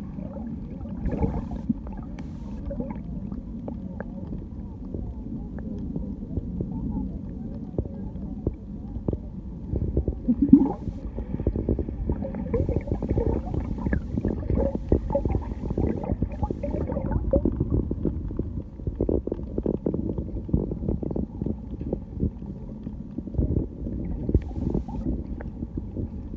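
Muffled underwater noise picked up by a submerged camera: a low rumble of moving water with dense crackling and knocking, busier and louder from about ten seconds in.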